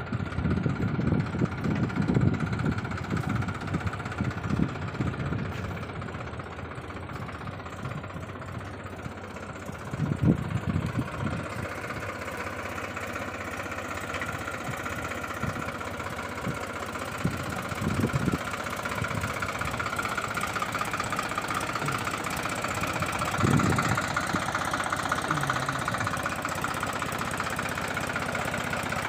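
Solis 4215 tractor's diesel engine running steadily under load, pulling a reversible plough at a crawl in its lowest 'zero speed' gear. Short low rumbles come through now and then.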